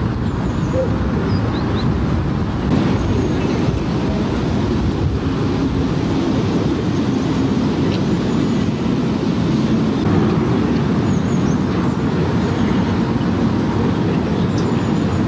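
Steady low rumbling noise, even and unbroken throughout, with no clear single source.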